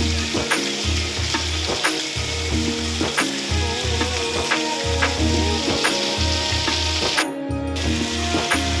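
Background music with held tones and a pulsing bass beat, over a steady hiss.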